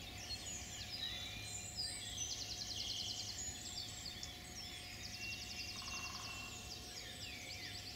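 Woodland songbirds singing, several at once, with a fast trill about two seconds in and another around five and a half seconds, over a steady low background rumble.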